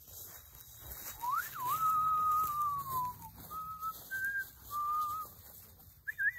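A person whistling a short tune: a long held note that swoops up at its start and slides down at its end, then several short notes at different pitches, and a last note near the end that rises and falls away.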